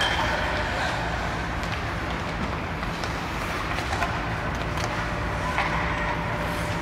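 Steady low mechanical rumble filling an ice rink, with a few sharp clacks of hockey sticks striking pucks.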